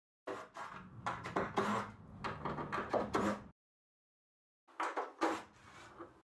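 Knocks and clatter of a cordless driver working on a headlight's mounting bolts. The sound comes in two short stretches with a gap of about a second between them.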